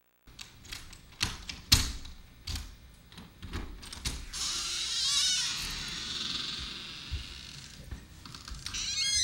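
A string of sharp clicks and knocks, then from about four seconds in a steady hiss that fades near the end.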